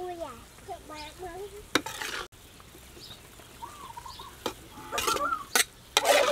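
A metal spatula scrapes and clinks against a wok and a metal tray as hot sweet-and-sour vegetable sauce is spooned over fried fish. Through it runs the sizzle of the steaming sauce. There are sharp scrapes and knocks every second or so.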